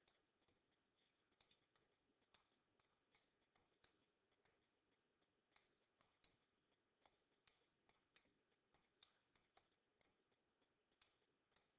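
Faint, irregular clicks of a stylus tip touching down on a tablet or touchscreen while handwriting, about two a second, over near silence.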